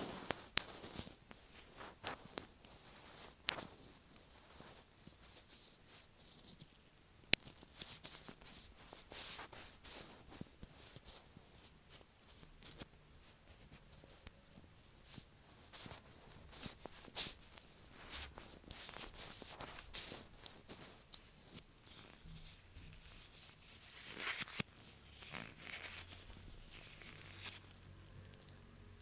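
Latex-gloved fingers tapping, rubbing and pressing directly on an earphone microphone: close, crackly sticky rubbing with many small clicks and taps, the sharpest tap about seven seconds in, growing softer in the last few seconds.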